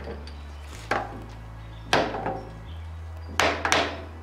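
Orange soft-faced mallet tapping an aluminum workpiece in a milling-machine vise, four knocks, the last two in quick succession, seating the part down flat on the parallel before the vise is tightened.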